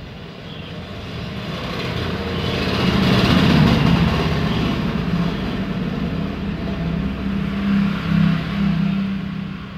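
A motor vehicle's engine running close by, growing louder over the first few seconds, holding with a steady low hum, and fading near the end.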